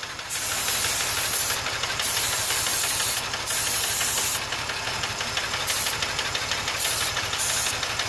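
Aerosol can of starting fluid hissing in several spray bursts, the first three about a second each and the later ones shorter, over an engine idling steadily. The idle does not rise while the intake is sprayed, the sign that there is no vacuum leak there.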